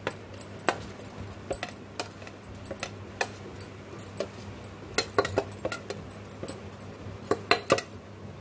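Metal spoon scraping and tapping against a stainless-steel bowl as garlic paste is scraped out onto chicken: irregular sharp clinks, several in quick succession about three quarters of the way through.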